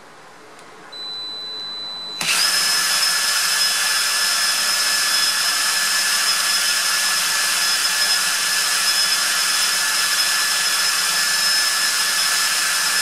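Ryobi 18 V cordless drill running steadily, spinning the rotor of an electric water-pump motor that is being tested as a generator, with a steady whine. It starts softly about a second in, comes up to full speed about two seconds in, and cuts off at the very end.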